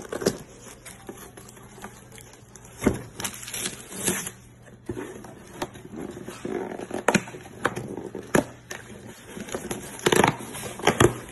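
Cardboard shipping box being handled and pulled open by hand: irregular scrapes, crinkles and sharp knocks of cardboard and tape, a loud cluster of them near the end.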